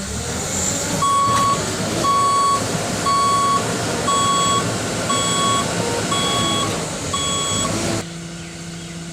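JCB backhoe's reversing alarm beeping seven times, about once a second, over its diesel engine working hard. Near the end the beeping stops and the engine drops to a steadier, quieter run.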